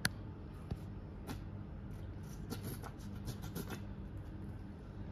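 Low room hum with a few soft clicks: a sharper one right at the start, single ones before and after the first second, and a run of faint ticks from about two and a half to four seconds in.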